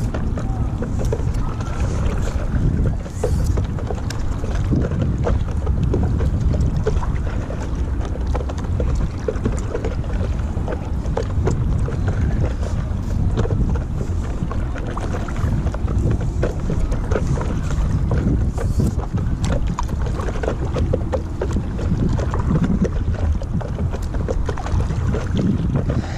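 Wind buffeting the microphone as a steady low rumble, with light, scattered water splashes from paddle strokes on a stand-up paddle board.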